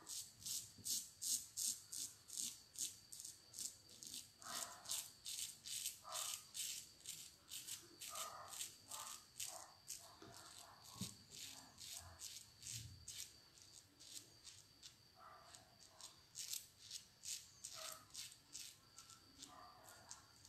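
Shavette razor blade scraping through lathered stubble in short, quick strokes, about three a second.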